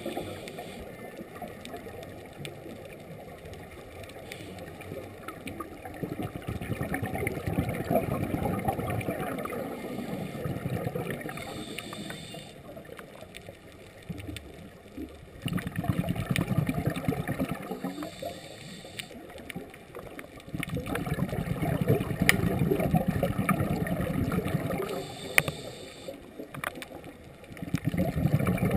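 Scuba diver breathing through a regulator underwater: a short hiss on each inhalation, then several seconds of exhaled bubbles rumbling and gurgling, in a steady cycle about every seven seconds.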